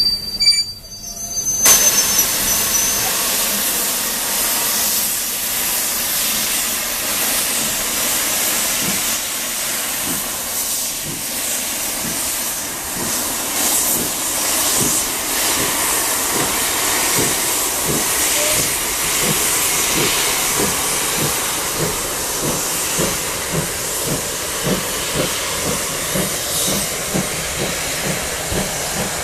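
Steam locomotive pulling a train away with its cylinder drain cocks open: a loud, steady hiss of steam starts suddenly about two seconds in. In the second half, rhythmic exhaust beats of about two a second come through under the hiss.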